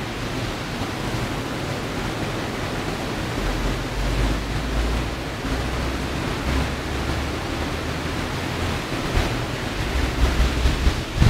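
Strong wind gusting across the microphone: a steady hiss with heavy low buffeting rumbles that come and go, growing gustier near the end.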